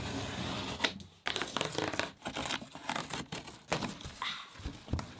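Packaging being handled and torn open: irregular crinkling and tearing of plastic or paper wrapping.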